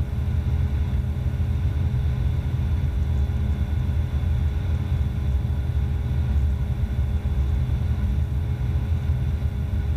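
Steady in-cockpit drone of an Evektor SportStar's Rotax 912 engine and propeller in cruise flight: an even low rumble with a few faint steady tones above it.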